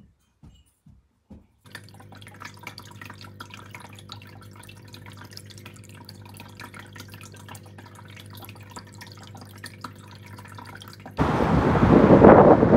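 Aquarium pump running: a steady hum with water trickling and dripping, starting about two seconds in. Near the end it cuts to a sudden, much louder rush of outdoor noise.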